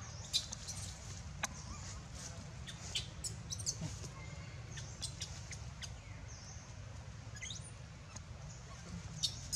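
Birds chirping in short, scattered high calls over a steady low rumble.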